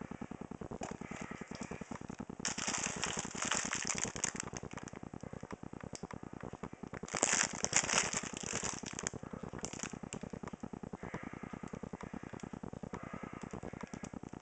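Plastic food packaging crinkling as it is handled, in two louder bursts about two seconds in and again about seven seconds in, over a steady rapid ticking.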